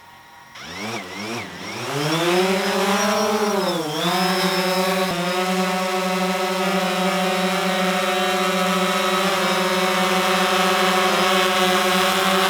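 DJI Phantom 4 quadcopter's propellers spinning up, the pitch climbing and dipping over the first four seconds or so, then settling into a steady buzzing drone as it flies.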